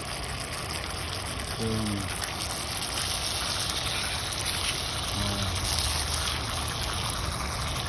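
Steady rushing of splashing water, with a couple of brief voice sounds over it.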